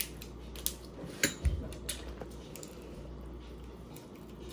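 Table eating sounds: a few scattered clicks and taps of utensils and crab-leg shells against plates, with a dull knock about one and a half seconds in.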